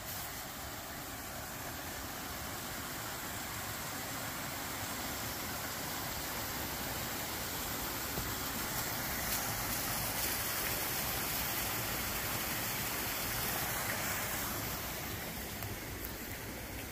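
Steady rush of flowing water, growing louder toward the middle and easing off near the end.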